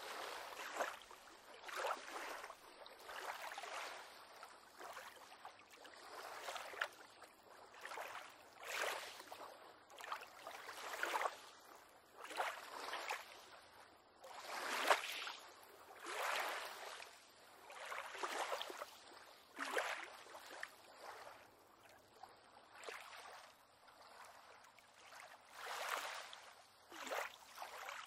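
Small waves on calm water lapping against a small pier, in soft irregular splashes about every one to two seconds.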